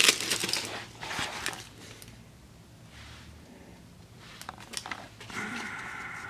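Plastic zip bag and old paper and foil candy wrappers crinkling as they are handled, loudest in the first second and a half, then quieter rustles and a few light clicks.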